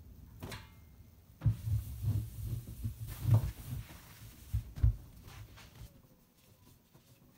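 Cloth wiping and rubbing the basin of a stainless steel sink, with a run of dull thumps from about a second and a half in until about five seconds, then fading.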